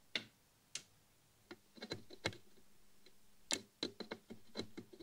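Light, irregular metallic clicks and ticks of pliers bending and wrapping a resistor lead around a turret post on a tube amp's turret board, a dozen or so small taps, more closely bunched in the second half.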